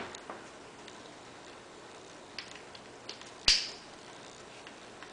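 Hardened steel jaw being slid by hand into a 3-jaw scroll chuck: a few faint metal ticks, then one sharp metallic click about three and a half seconds in as the jaw catches the scroll.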